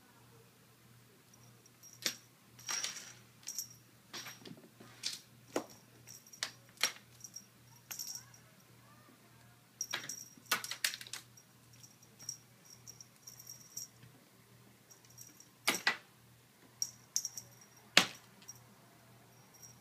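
Small jingle bell jingling in short, irregular shakes as a cat paws at it, the loudest shakes near the end.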